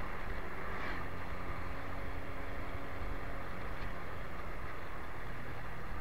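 Motorcycle running at a steady speed while riding, a steady engine note under road and wind noise.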